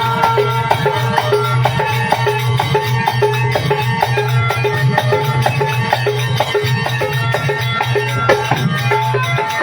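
Instrumental break in a live Rajasthani bhajan: a hand drum keeps a quick, steady beat over a sustained melody instrument and a constant low drone, with no singing.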